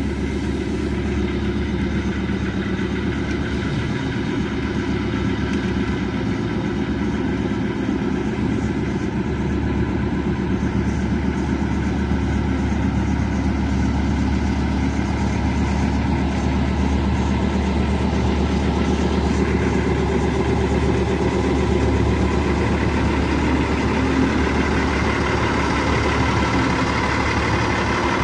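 Narrow-gauge diesel locomotive's engine running steadily as it moves slowly up, growing a little louder as it comes close.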